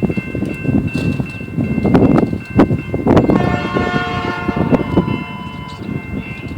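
Canadian Pacific train rolling past with a low rumble and wheel clatter over the rails. About three seconds in a horn sounds, held for about two and a half seconds.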